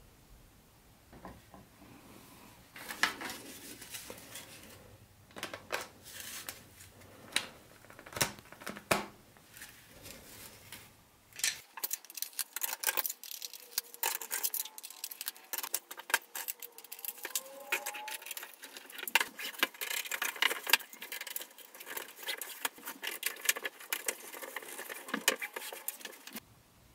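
Lionel FasTrack O-gauge track sections, plastic roadbed with metal rails, being handled and snapped together: scattered knocks at first, then a dense run of small clicks and clatter from about twelve seconds in, stopping shortly before the end.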